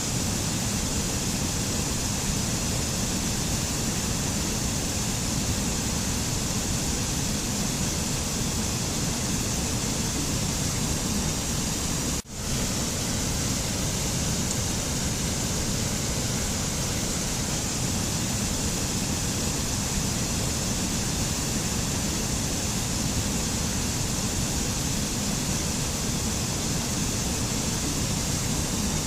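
Steady, even rushing noise of a nature-ambience recording, with a brief dip in level about twelve seconds in.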